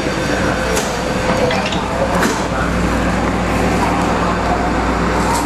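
Hong Kong MLR electric multiple unit motor car running on the line: a steady rumble of nose-suspended traction motors and wheels on rail, with a faint motor whine that fades about one and a half seconds in and a few sharp clicks from the wheels and track.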